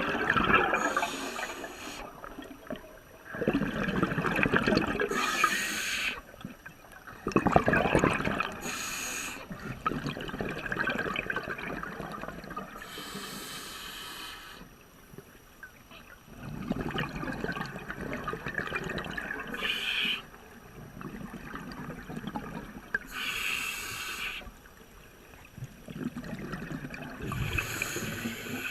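Scuba diver breathing through a regulator underwater: bursts of hissing breath and gurgling exhaled bubbles every few seconds.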